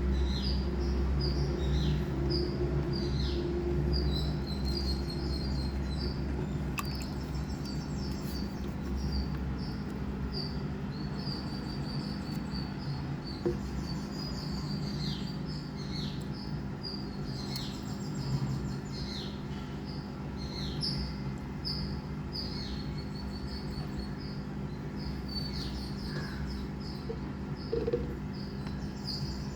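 Small birds chirping repeatedly, short high calls, many of them dropping quickly in pitch, over a steady low hum.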